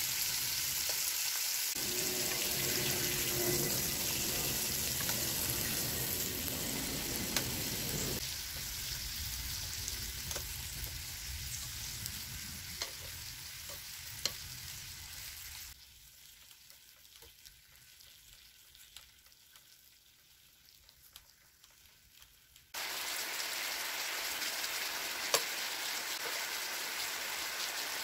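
Beef and potato slices sizzling on a mini electric grill pan, a steady frying hiss with a few sharp clicks. The sizzle drops to a faint level for several seconds past the middle, then comes back abruptly.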